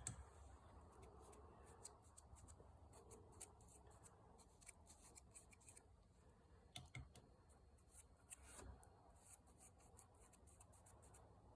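Very faint scratching and rubbing, with scattered light clicks, as hot wax is dabbed over the plugged holes in a log to seal them.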